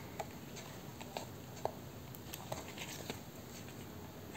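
Faint handling of paper during gluing: a few light, scattered taps and rustles over a steady low hiss.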